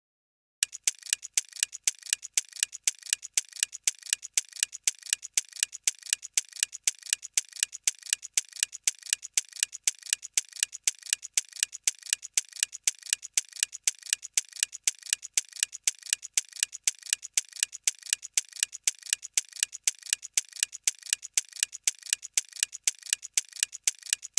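Countdown-timer ticking: a clock-like tick sound effect repeating steadily several times a second, starting about half a second in, marking the 25 seconds given to answer.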